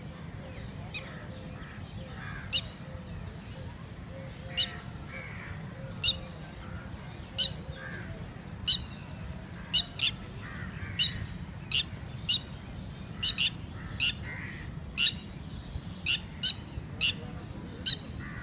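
Red-wattled lapwing calling: sharp, high, piercing notes repeated about once a second, unevenly spaced and coming more often in the second half, over a steady low background rumble.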